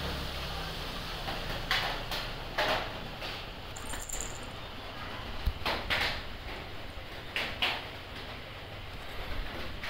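A few short scratchy rustles as a pet cat stirs and scratches at its neck, with a brief high tinkle from its collar bell about four seconds in.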